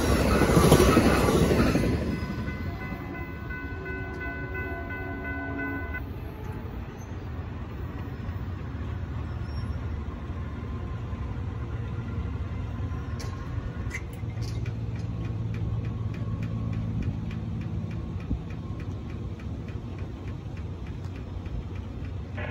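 The tail end of an Amtrak Superliner passenger train rolls past over a grade crossing, a loud rush of wheel and car noise that drops away about two seconds in. The train's horn then sounds a steady chord from down the line for a few seconds and cuts off, leaving the fading low rumble of the departing train.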